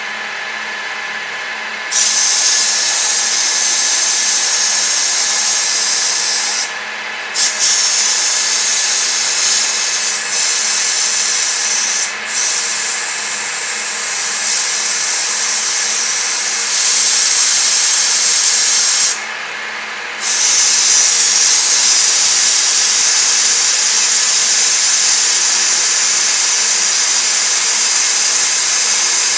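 TOS FN20 milling machine dry-milling aluminium under CNC, with a steady whine from its drive and the end mill cutting. About two seconds in, a loud hiss of compressed air blowing chips off the cut starts over it. The hiss cuts off and comes back a few times.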